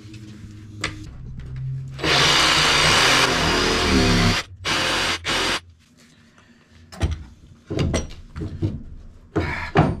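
Cordless reciprocating saw cutting into wooden floorboards: one cut of about two seconds, its motor pitch falling as it stops, then two short bursts. Several sharp knocks follow near the end.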